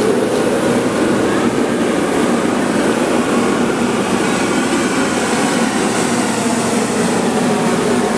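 100 series Shinkansen car giving off a steady mechanical hum, with a couple of low held tones.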